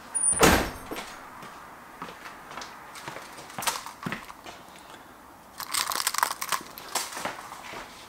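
A door knocks shut about half a second in, the loudest sound. Later come footsteps and a rattle of a bunch of keys, with light clicks.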